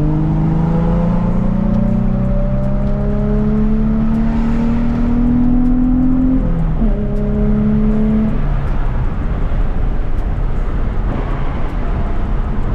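Car engine accelerating, its note climbing steadily, then dropping suddenly with an upshift about six and a half seconds in; the engine note fades about two seconds later, leaving a steady road rumble.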